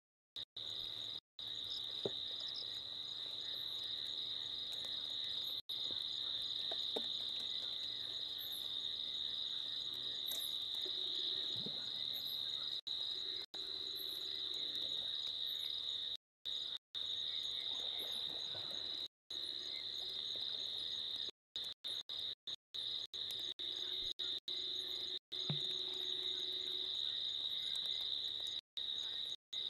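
Night insects, likely crickets, trilling in a steady high-pitched chorus, broken by many brief moments where the sound cuts out completely.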